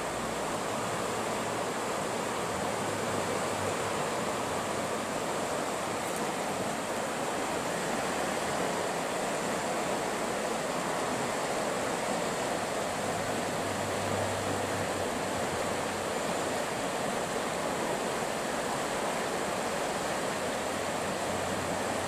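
Fast river current rushing over rocks in a riffle: a steady, even rush of water.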